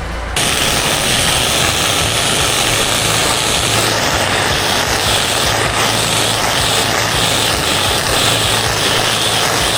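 Pressure washer spraying a high-pressure jet of water, with a steady hiss over the engine's hum. The spray starts abruptly just after the start and cuts off at the end, like a trigger squeezed and released.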